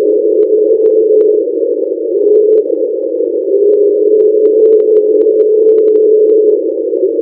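NOAA underwater recording of the "Train" sound, thought to come from a large iceberg grounded on the floor of the Ross Sea: a loud, steady drone centred on one wavering tone, with faint scattered ticks.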